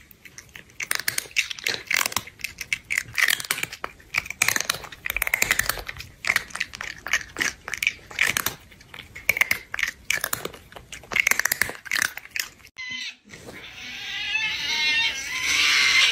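A cat chewing food with wet smacking and crunching, a dense run of irregular clicks. Near the end this gives way to a louder, drawn-out wailing cry whose pitch rises and then falls.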